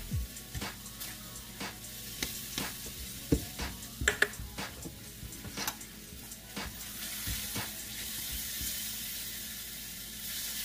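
Silicone spatula scraping and knocking irregularly against a stainless steel pan while stirring a thick butter, sugar and breadcrumb filling, which sizzles softly over the heat. The sizzling hiss grows stronger in the last few seconds.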